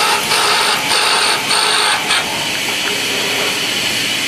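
Multi-axis CNC machine milling a brass workpiece with an end mill: a loud hiss of cutting with a high whine that comes and goes in pulses, easing to a lighter, steady machine hiss about two seconds in.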